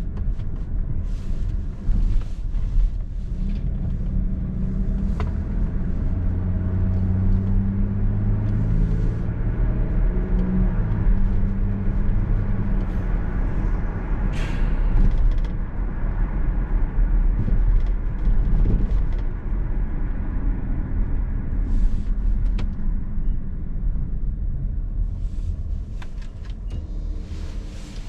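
Car engine and road noise heard from inside the cabin while driving: a steady low rumble, with the engine note strongest midway, that eases off near the end as the car slows.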